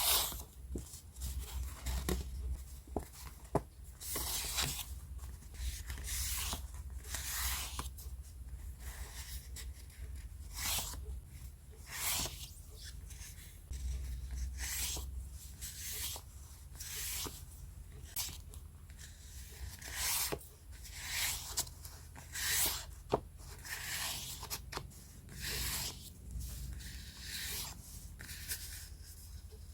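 Scrapbooking papers and paper stickers being handled: a long run of irregular rustling swishes as sheets are picked up, shuffled and laid down, with a few light taps and clicks.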